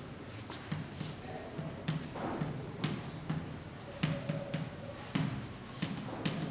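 Chalk tapping and scraping on a blackboard while writing and drawing: a string of sharp knocks at uneven intervals, with short rubbing strokes between them.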